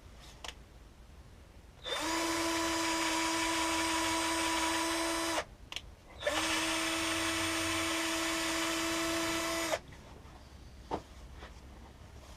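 Electric drill run twice at a steady speed for about three and a half seconds each, with a short pause between, drilling the centre hole in a home-made blanking plug for the EGR port.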